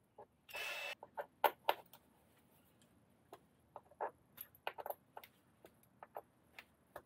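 A cordless drill runs briefly, driving a screw into the chassis brace. Then comes a string of small clicks and taps as fingers handle a screw and a threadlock bottle.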